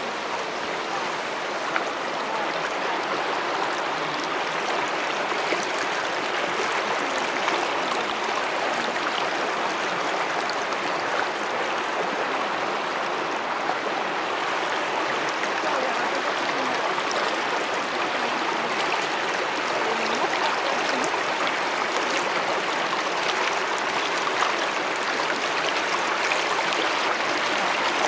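Shallow river running fast over stones and gravel: a steady rush of water.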